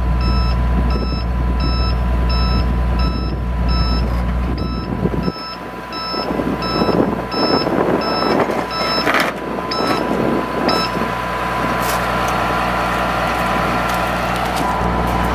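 Warning alarm beeping about twice a second while the digger derrick truck's hydraulic outriggers are lowered onto the gravel, over the truck's running engine. The engine's low hum drops about five seconds in, and the beeping stops near the end.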